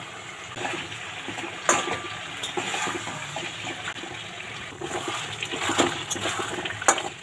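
Chicken and potatoes sizzling in a thick masala in a metal kadai while a metal spatula stirs and scrapes them, with a few sharp knocks of the spatula against the pan. The masala is being fried down until the oil separates from the yoghurt-based gravy.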